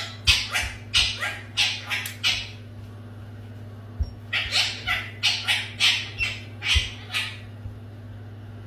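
A pet parrot making short, raspy, breathy squawks, about three a second, in two runs with a pause of about two seconds between them. A steady low hum lies underneath.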